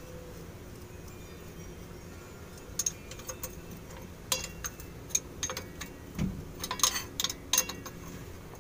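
Irregular metallic clicks and clinks of a hand wrench on the bolts joining the propeller shaft flange to the parking brake drum. They start about three seconds in and stop shortly before the end.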